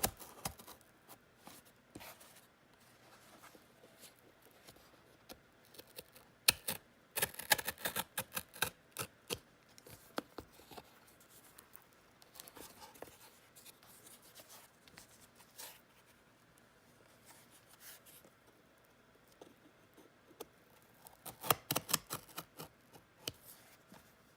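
A cardboard shipping box being cut and worked open by hand: clusters of quick sharp snips and scrapes about seven seconds in and again near the end, with scattered small clicks between.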